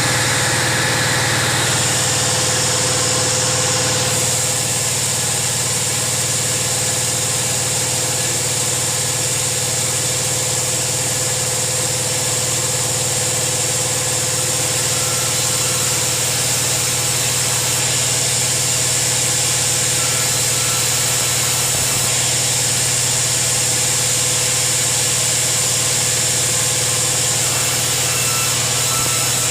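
Sawmill bandsaw machine running steadily: a constant low hum with a steady tone and a high hiss that do not change.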